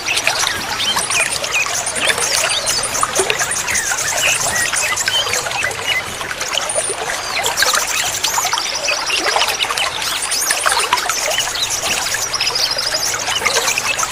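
Water trickling and splashing steadily, with many birds chirping over it in short rising and falling notes, and high, rapid buzzing trills coming and going.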